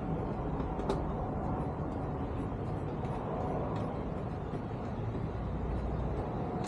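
Light clicks and ticks of a Torx driver loosening body-panel screws, over a steady low background rumble.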